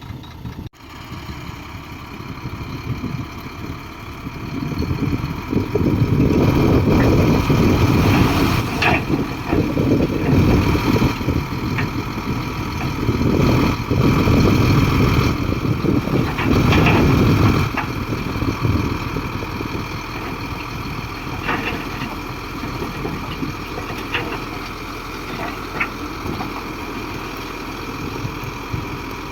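Heavy diesel engine of an earthmoving machine working. It rises to a much louder, labouring run under load for about twelve seconds in the middle, with several swells, then eases back to a lower steady running.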